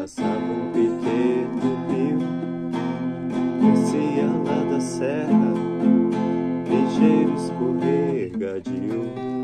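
An acoustic guitar with paired strings is played alone in an instrumental passage of a song, with notes ringing on over one another. The playing drops away briefly about eight seconds in, then picks up again.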